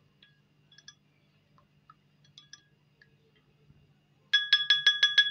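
Spoon clinking against a cut-glass bowl of kulfi mixture: a few faint light taps, then about nine quick, ringing clinks in a row near the end as it is stirred.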